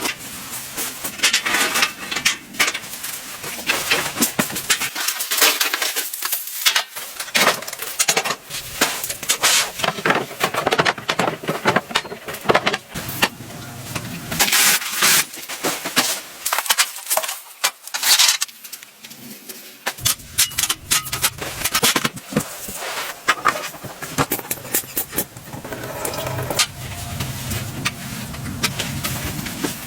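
Things being handled close up: a busy run of rustling, clicks and light clatters, with two short lulls.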